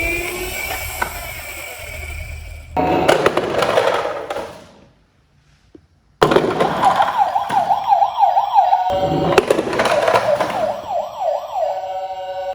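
Electronic police-siren sound, a fast repeating rising wail of about three sweeps a second, coming in about six seconds in after a brief hush and briefly breaking off near the middle of its run. Before it, a few seconds of clattering knocks.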